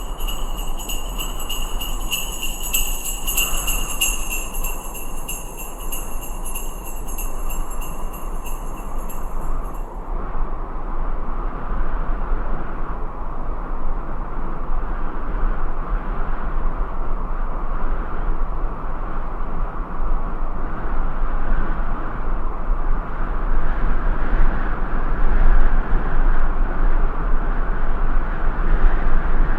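Sleigh bells jingling over a steady rushing winter wind. The bells stop after about ten seconds, leaving the wind alone, which gets louder and gustier near the end.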